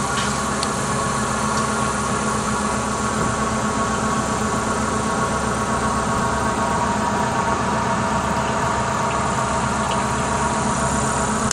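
A tour boat's engine running steadily while the boat is under way, an even hum with a hiss of water and air over it.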